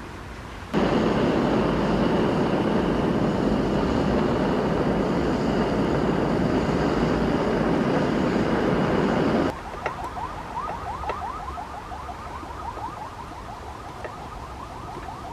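A power tool runs loudly and steadily for about nine seconds, starting and stopping abruptly. After it stops, a quieter, quick series of short repeated strokes follows.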